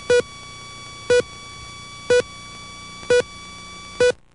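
Videotape slate countdown beeps: a short loud beep once a second, five in all, over a fainter steady high tone, all cutting off suddenly about four seconds in.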